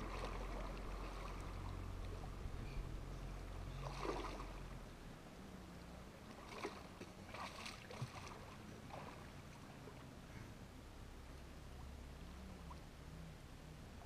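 Water splashing as a person wades out of a river: one splash about four seconds in, then a quick run of splashes a little later. A low steady rumble underneath dies away partway through.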